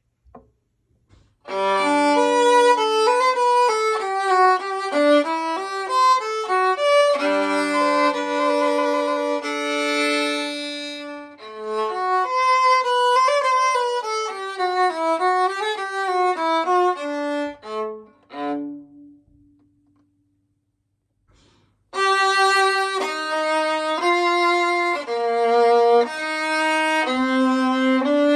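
Solo c1930 15.5-inch viola labelled Stradivarius, bowed in melodic phrases. The playing stops for about two seconds partway through, then starts again.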